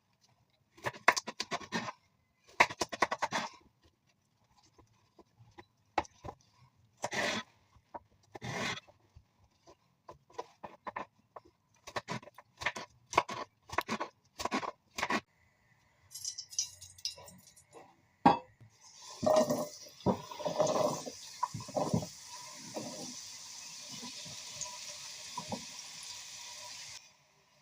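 Kitchen preparation sounds: irregular knocks, taps and clinks of utensils and dishes. Near the end comes a steady hiss lasting about eight seconds that cuts off suddenly.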